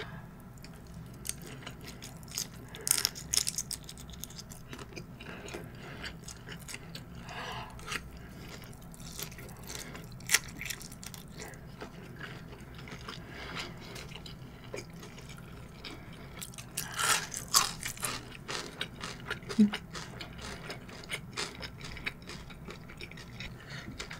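A person chewing large shrimp nigiri close to the microphone: soft wet chewing with many small mouth clicks and smacks, bunched into a few louder clusters.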